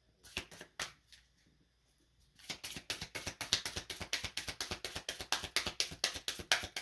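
A deck of cards being shuffled by hand: a few soft clicks, a pause of about a second and a half, then a quick, steady run of card flicks, several a second, from about two and a half seconds in.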